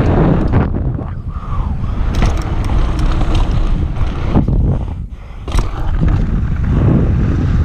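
Wind buffeting the camera's microphone as a mountain bike rides fast down a dry dirt trail, with tyre noise and scattered sharp knocks and rattles from the bike. The noise dips briefly about five seconds in, then a sharp knock follows.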